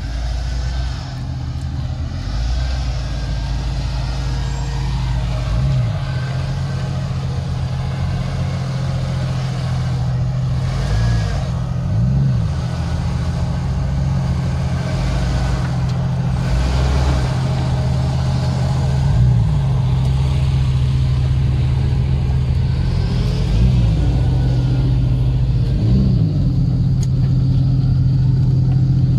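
Off-road 4x4's engine running at low revs as it crawls along the trail, with about seven short throttle blips, each a quick rise and fall in pitch.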